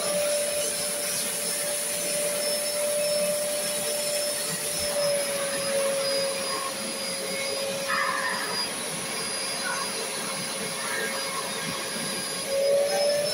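Wet-extraction vacuum cleaner running steadily as its upholstery nozzle is drawn over a fabric sofa cushion: a constant motor rush with a steady whine that dips slightly about five seconds in and climbs again near the end.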